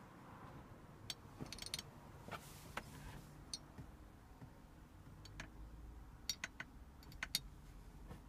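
Faint, irregular clicks and light taps over a low rumble, with the sharpest clicks coming in the later half.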